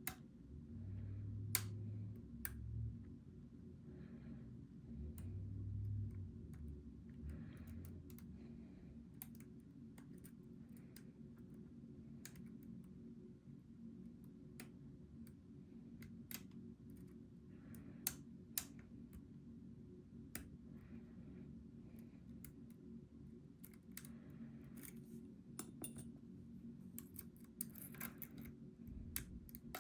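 Lock picks clicking and scraping on the pins inside a Goal V18 lock's keyway, with scattered sharp metallic clicks as the pins are worked. Two short low hums come in the first eight seconds.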